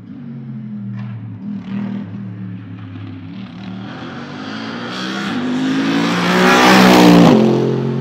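Mercedes SLS AMG GT3 race car's naturally aspirated V8 on track, its pitch stepping up and down through gear changes, then accelerating and passing close. It is loudest about seven seconds in, and its pitch drops as it goes by.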